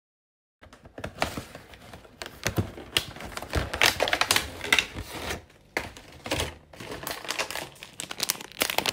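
A thin card gift box being torn open, then its pastries handled in their plastic wrappers and plastic tray. Dense, irregular crackling and rustling of paper and plastic begins about half a second in.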